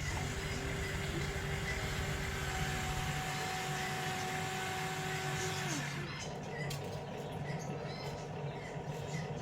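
Electric motors of a Huina remote-control toy excavator running with a steady whine, two tones at once, that winds down and stops about six seconds in. Short faint chirps follow.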